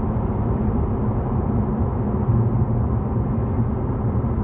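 Steady low rumble of road and engine noise inside the cabin of a moving BMW 5 Series GT 20d (F07), a four-cylinder diesel.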